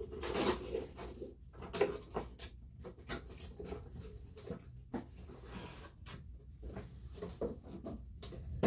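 Cardboard box of a monitor being handled: irregular scraping, rustling and light knocks.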